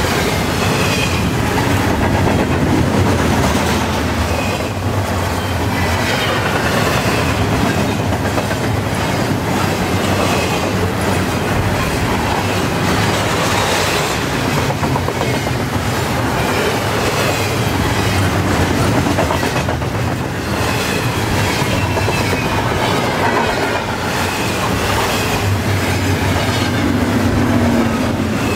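Double-stack container well cars of a freight train rolling past at about 44 mph. Steel wheels run on the rail in a steady, loud rumble, with repeated clacks as the wheel trucks go by.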